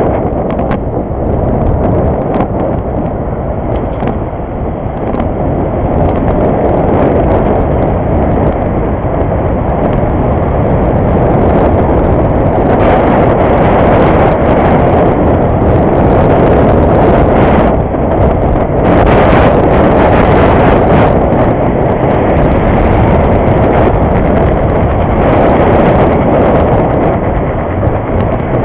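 Wind buffeting the microphone of a camera riding on a moving bicycle: a loud, steady low rumble, with scattered clicks and rattles.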